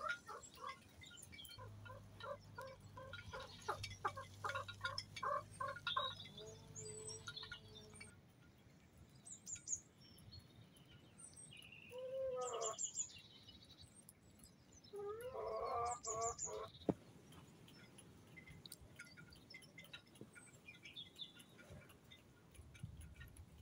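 Chickens in a run clucking: a series of short clucks, about two or three a second, for the first several seconds, then two louder drawn-out calls about 12 and 15 seconds in. There are a few high chirps and faint clicks of beaks pecking at the gravel.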